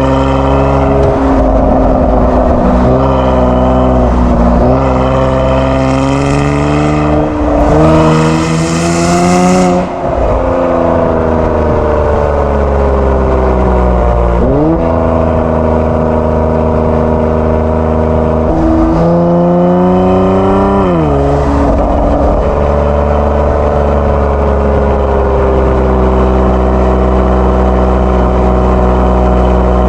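Kia Stinger 3.3's twin-turbo V6 through an aftermarket JSR Performance exhaust, under way: revs climb and fall several times, with a brief rush of hiss as they peak about nine seconds in and a sharp drop a little past twenty seconds, then a steady drone at cruise.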